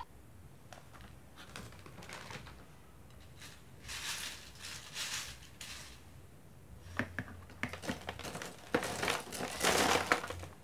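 Plastic snack packet crinkling and light puffed crackers rustling and clicking against a glass bowl, then a longer, louder rush as the crackers are tipped into a jar near the end.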